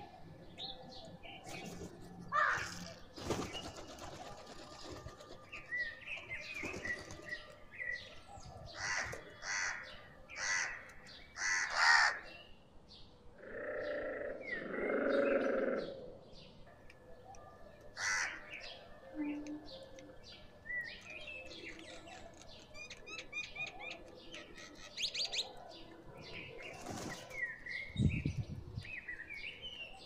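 Rock pigeons and a crow feeding on scattered grain on concrete: bursts of wing flapping and short sharp pecking sounds, with bird chirps and calls among them. The loudest stretch is a longer sound about halfway through.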